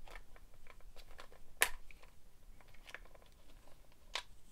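A screwdriver prying the small plastic wheels off a cordless vacuum's floor brush head: light plastic clicks and scrapes, with a sharper snap about a second and a half in and another near the end.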